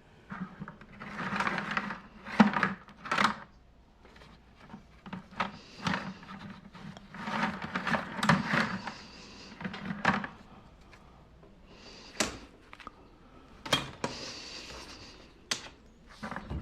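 Copper wire being worked through a Stripmaster wire stripper: irregular metallic scraping and rustling with sharp clicks, three of them standing out near the end.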